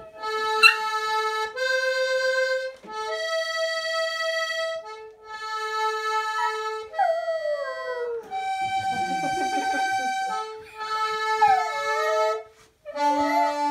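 Button accordion playing a tune in held chords, phrase by phrase with short breaks, while a small dog howls along; a long falling howl comes about seven seconds in and wavering howls follow near the end.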